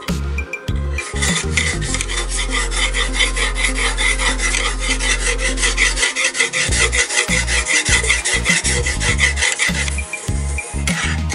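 Fast rasping strokes of an abrasive-faced wooden block scraping back and forth along a steel knife edge in a guided sharpening jig, several strokes a second, easing off near the end. Background music plays underneath.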